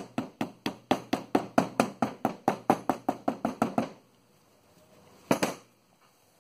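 Steady, rapid hammer taps, about four to five a second, driving a tight-fitting oil seal down into a Land Rover Series 2a front wheel hub. They stop about four seconds in, and a short double knock follows a little over a second later.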